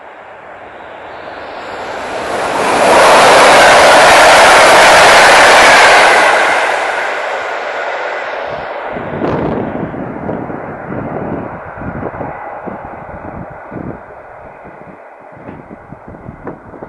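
A train passing the platform at speed: a rushing noise builds, is loudest for about three seconds with a faint falling whine, then dies away. Gusty buffeting on the microphone from the train's wake follows.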